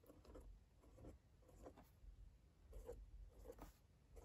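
A pen drawing small circles on notebook paper: a series of short, faint scratchy strokes at an uneven pace.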